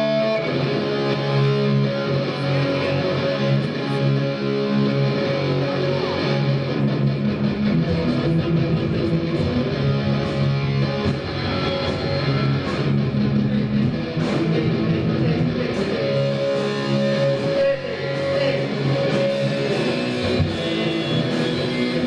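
Electric guitar played through a stage amplifier at a soundcheck: strummed, held chords and riffs ringing out without a break.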